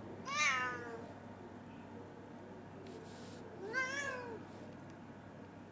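Domestic cat meowing twice, about three seconds apart: the first call falls in pitch, the second rises and then falls.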